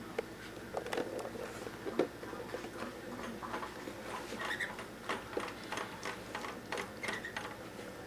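Cockatiel's claws ticking in quick, irregular taps as it walks across a hard vinyl floor.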